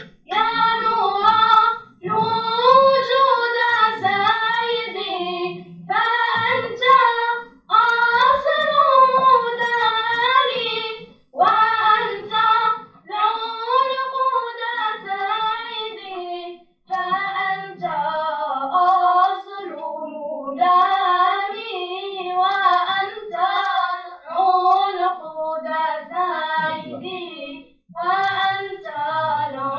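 A group of children singing together in unison, in melodic phrases separated by short pauses for breath.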